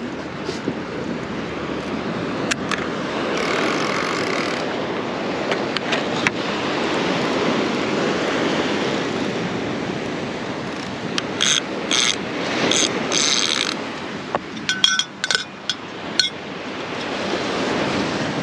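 Ocean surf washing in steadily, with wind on the microphone. Several short, sharp sounds come in the last third.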